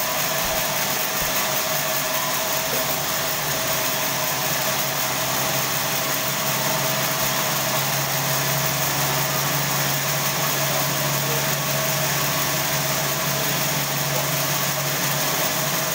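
Sawmill band saw running steadily: a constant mechanical drone with a steady whine over it. The low hum grows a little stronger in the middle.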